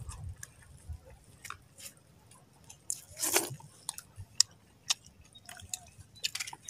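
Close-up chewing of lukot, sea hare egg strands dipped in vinegar, with scattered short clicks of the mouth and one louder noise about three seconds in.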